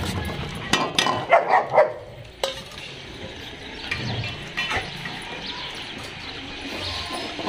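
A metal scraper clinks and scrapes against a steel dog bowl as food is served out. About a second in, a dog gives a quick run of about three barks, and there are a few shorter dog sounds later on.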